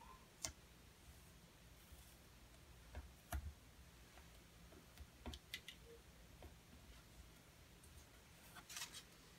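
Near silence, broken by a few faint clicks and light taps from hands pressing vinyl decals onto a wooden toilet seat. The loudest are about half a second and three seconds in, and there is a brief crinkle near the end.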